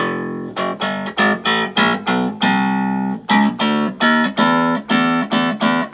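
Hohner Clavinet played as a quick run of short, bright, plucky notes, about three or four a second. Its hammer tips are newly replaced and not yet aligned, so the notes are not all clear yet.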